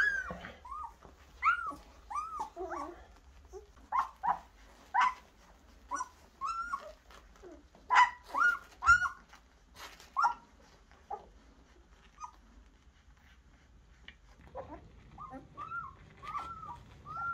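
German shepherd puppies whimpering and squealing, many short high-pitched yelps in quick succession, which the owner likens to chimpanzees. The calls die down to a lull a little past the middle and pick up again near the end.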